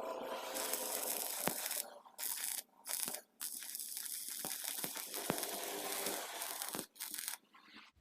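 Stick-welding arc with a J521 electrode, crackling and sizzling steadily. It breaks off for short moments several times and fades out near the end.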